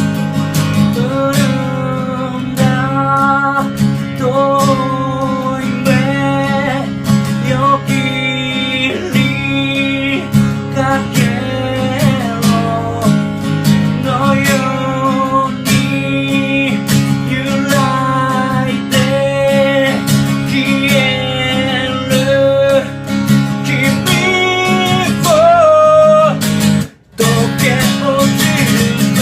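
Acoustic guitar strummed with a voice singing a melody over it. The sound drops out for a moment near the end.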